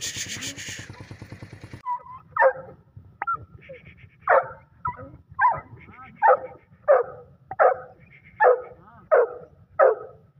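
Kohati Gulter dog barking repeatedly, about nine sharp barks a little under a second apart, starting about two seconds in.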